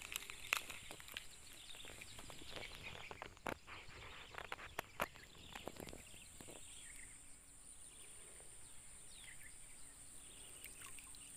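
Quiet outdoor ambience with a steady high hiss. Scattered clicks and rustles fill the first six seconds, and faint bird chirps come in near the end.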